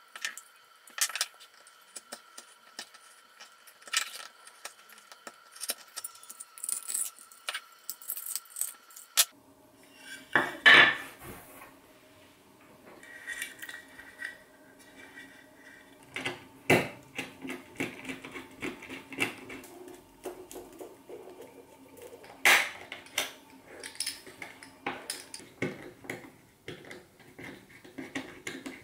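Irregular clicks, taps and scrapes of hands working a black plastic emergency-stop contact housing: a craft knife trimming the plastic, small parts knocked and set down on a wooden bench, and a screwdriver turning the terminal screws near the end. A few louder knocks stand out over a faint steady hum.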